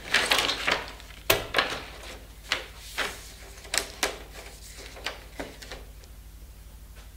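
Plastic reflector sheet of an LCD TV backlight being rustled and pressed into place by hand, with a string of sharp clicks and taps, the loudest click about a second in. A steady low hum runs underneath.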